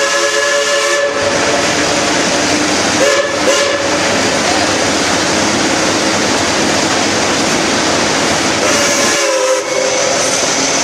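Locomotive whistle sounding three times over the steady running noise of a train: a blast that ends about a second in, a short one around three seconds in, and another near the end.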